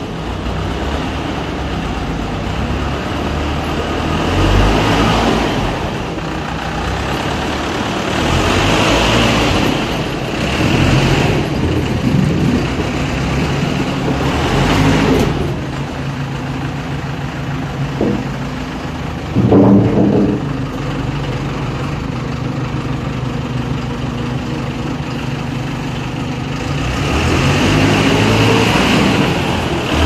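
Diesel engine of an underground LHD loader running loud and steady, swelling up and down several times as the machine moves, with a short louder burst about two-thirds of the way through.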